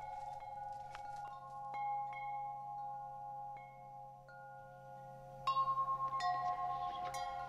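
Chimes ringing: single struck notes that ring on and overlap, with a quick run of strikes about five and a half seconds in, over a low steady hum.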